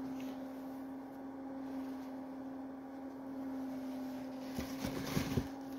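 Steady low electrical hum with faint room noise, and a few soft handling bumps of the phone about four and a half to five and a half seconds in.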